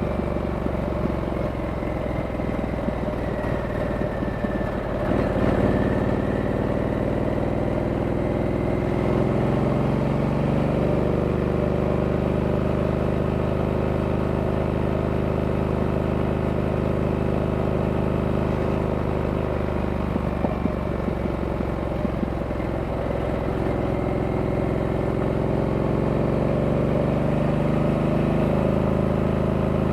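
Stock 2023 Harley-Davidson Sportster S's Revolution Max 1250T V-twin running steadily under way, heard from on board the bike. The engine note is uneven for the first few seconds and again around twenty seconds in, then settles steady.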